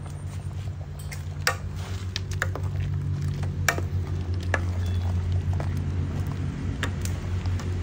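A metal ladle stirring chicken curry in an aluminium pot, with scattered sharp clicks and knocks against the pot, over a steady low motor-engine hum that slowly grows louder.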